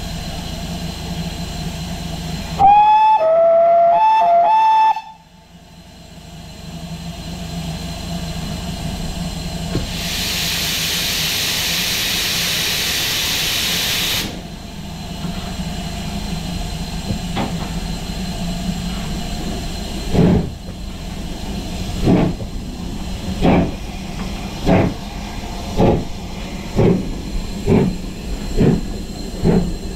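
Steam whistle of GWR Grange-class 4-6-0 No. 6880 Betton Grange sounded in several short blasts, then a few seconds of steam hiss. Then the locomotive's exhaust beats start up and come faster and faster as it gets under way.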